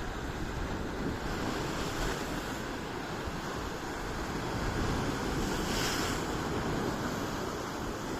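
Sea surf washing onto a beach, a steady rushing that swells louder about six seconds in as a wave comes in, with wind buffeting the microphone.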